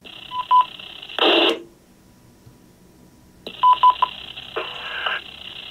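Short DTMF tone beeps, sent from the phone's built-in radio as commands to an Allstar node, heard through radio audio. There are two quick groups of about three beeps over faint hiss, and each group is followed by a brief rush of static as the transmission drops.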